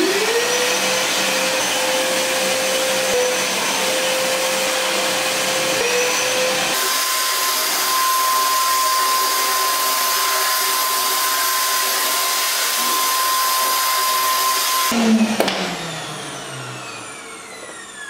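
A TEXUM TVC-30 1800-watt wet and dry canister vacuum cleaner starts up with a rising whine and runs steadily while vacuuming debris off a wooden floor. Its sound changes abruptly about seven seconds in. Near the end it is switched off and its whine falls away as the motor winds down.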